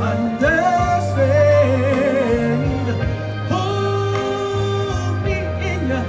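A man singing a ballad through a microphone and loudspeakers over backing music, holding long notes with a wavering vibrato and sliding through runs without clear words. The backing has a steady low bass.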